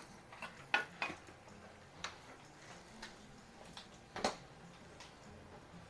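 A few scattered light clicks and taps of handling in a quiet room, the sharpest about four seconds in.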